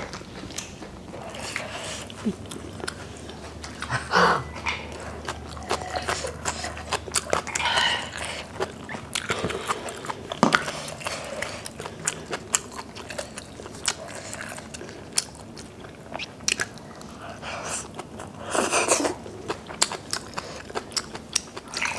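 Close-miked chewing of rice and kimchi: wet mouth sounds and crunchy bites in scattered bursts, with small clicks between them.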